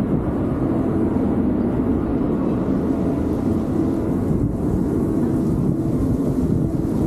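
Wind buffeting the microphone on an open ship deck: a steady low rumble that flutters unevenly, with no distinct events.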